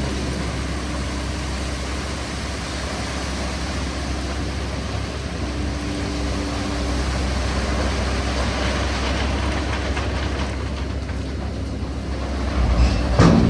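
Volvo crawler excavator's diesel engine running steadily under load with its hydraulics working, and a single clank near the end.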